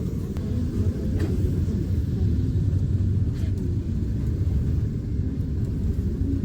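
Eizan Electric Railway train running, heard from inside the carriage: a steady low rumble of wheels on the rails.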